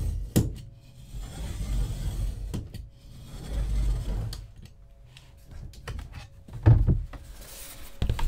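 Heavy-bladed utility knife scoring 2 mm book board along a steel ruler, in about three light passes a couple of seconds apart, each a low scraping rasp. Sharp clicks come between the strokes, and a louder knock comes near the end.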